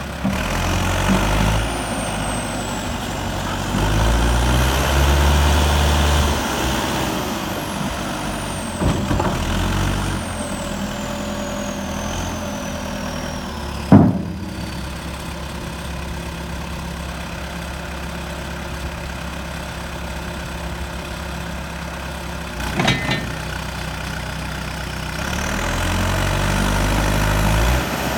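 JCB 215's diesel engine running, revving up for a few seconds twice, near the start and near the end. A sharp loud clunk comes about halfway through, and a few lighter knocks follow later.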